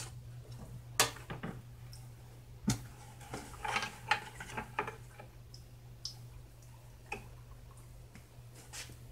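Scattered clicks and knocks of a plastic five-gallon bucket being handled against a utility sink and its faucet, a cluster of them a few seconds in, over a low steady hum.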